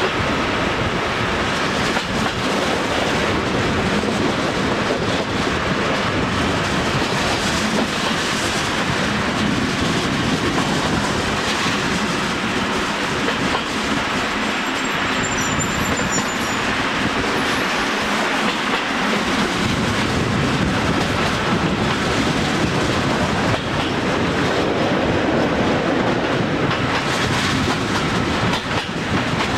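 Train running along the line, heard at an open carriage window: a steady noise of wheels rolling on the rails that holds at an even level throughout.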